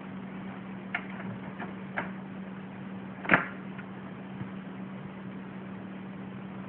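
A kitten pawing and batting at a large flat cardboard box: a few sharp taps and cardboard rustles, the loudest about three seconds in, over a steady low hum.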